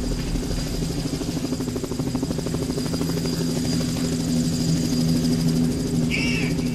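Cessna 172's piston engine and propeller running at idle on the ground, a steady even drone with a low hum.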